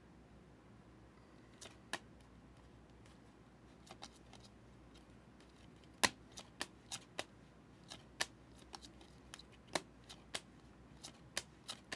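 Optic football trading cards being handled and flipped one by one: a faint run of irregular little clicks and snaps, sparse at first and coming thicker in the second half.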